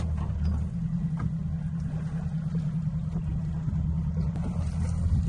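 Boat engine idling steadily in neutral while the anchor is hauled up. The low hum shifts slightly in pitch about a second in.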